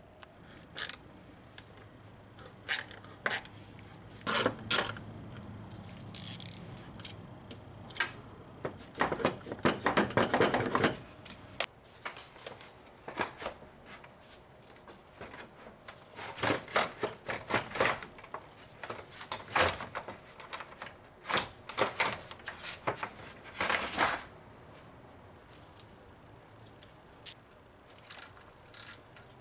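Hand tools and metal parts being handled during repair work on a BMW N54 engine's drive belt area: scattered clicks, taps and scrapes, with a longer run of rapid clicking about a third of the way in.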